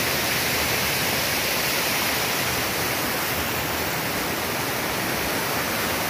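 Large park fountain's water splashing and rushing, a steady, even hiss with no breaks.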